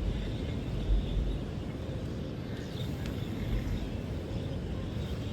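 Birds chirping faintly over a steady low rumble.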